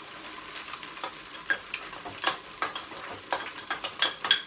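Whiting fish deep-frying, its oil sizzling steadily, over a run of sharp metal clinks and taps from a utensil in a bowl of tartar sauce, loudest near the end.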